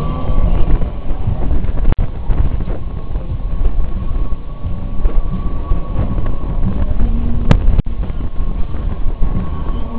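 Wind rushing over the microphone of a camera carried on a spinning fairground swing ride: a loud, low, buffeting rumble with a faint steady tone above it, and a sharp click about seven and a half seconds in.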